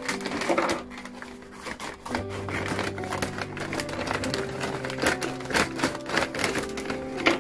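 Background music with held notes, over the crinkling and rustling of a kraft paper mailer being handled and snipped open with scissors in short, sharp clicks.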